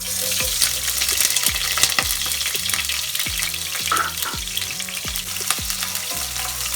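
Chopped red onion frying in hot vegetable oil in a pot: a loud, steady sizzle that starts suddenly as the onions go in.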